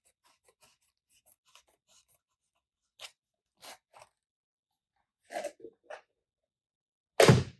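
Hands working a Voigtlander Vito Automatic camera out of its original case: faint scratching and rubbing, several short rustles and knocks, then one loud thump near the end.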